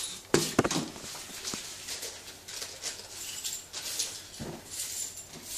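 Close handling noise: irregular scraping and rustling with sharp clicks, the loudest about half a second in.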